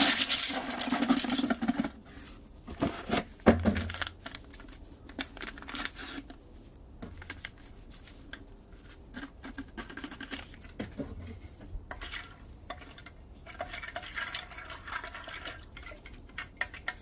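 Dried potato slices pouring from a cardboard box into the water of a toilet bowl, loudest in the first two seconds. Then a paper packet rustles, and a plastic spoon stirs and scrapes in the bowl water with scattered clicks.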